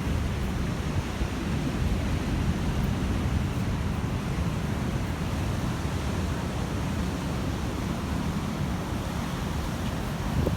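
Big storm-swelled sea waves breaking and washing ashore, a steady rush of surf, with wind rumbling on the microphone.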